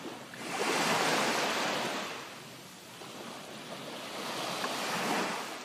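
Water sound effect like a wave washing in, a steady rushing noise that swells about a second in, eases off, then swells again near the end.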